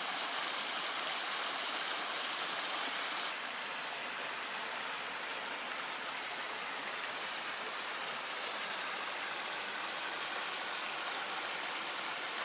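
Cascading river water rushing steadily, an even hiss-like roar with no single splashes standing out. About three seconds in, the rush drops a little in level and loses some of its brightness.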